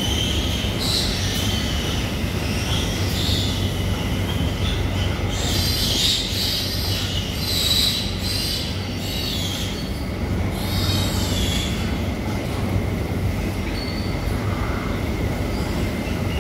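Suckling piglets squealing in high-pitched bursts as they jostle at the sow's teats, thickest from about six to eight seconds in and again around eleven seconds, over a steady low hum.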